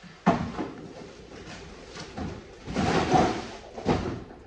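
Cardboard box and plastic packaging scraping and rustling as an electric scooter is lifted out of its box. There is a sharp knock about a third of a second in and another near the end.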